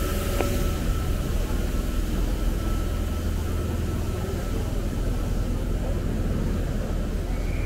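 Steady low rumble of a vehicle in motion, with a faint steady whine over the first few seconds.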